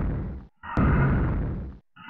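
Two low, rumbling dinosaur growl sound effects, each fading out. The first cuts off about half a second in, and the second starts right after and fades away near the end.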